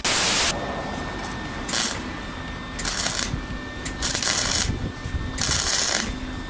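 A half-second burst of TV-static hiss, then a wire-feed welder crackling in short bursts about a second apart as it stitch-welds thin sheet steel on a 1963 VW Beetle decklid. The welds are laid a little at a time to avoid burning through the thin metal.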